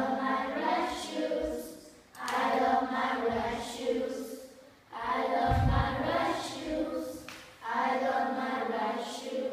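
A small group of children singing a short song in unison, in four phrases with brief pauses between them. A low thud comes about halfway through.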